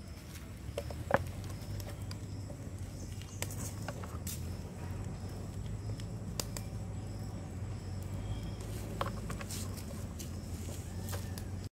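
Faint outdoor background with a steady low rumble and scattered small clicks and taps, a sharper tap about a second in.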